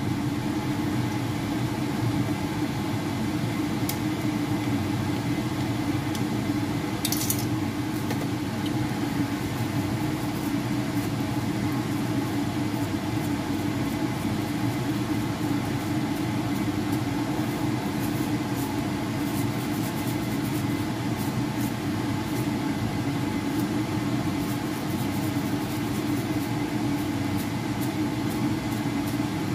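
Steady low mechanical hum, like a running kitchen appliance or fan, with a brief hiss about seven seconds in and a few faint clicks.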